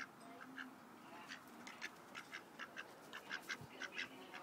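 A duck quacking in a fast run of short, faint quacks, about four a second, coming quicker after the first second.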